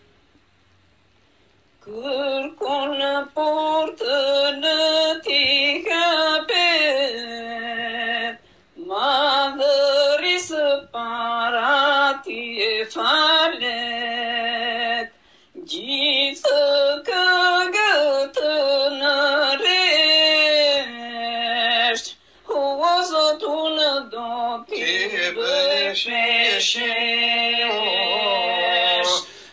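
A solo voice singing in Albanian without accompaniment, in phrases with brief silences between them. It comes in about two seconds in.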